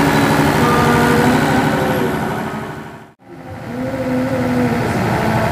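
A diesel generator set's engine running steadily. The sound fades out and back in about three seconds in.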